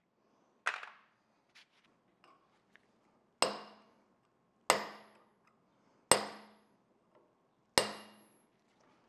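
Hammer blows on a steel punch held against a cast-iron Wilton bench vise body: a lighter tap about a second in, then four sharp, ringing metal strikes about a second and a half apart.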